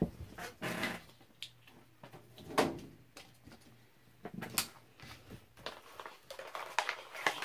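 Quiet handling sounds of diamond-painting supplies: a small clear plastic case clicked and set down on a wooden table, then a paper packet crinkled, with scattered light taps and clicks.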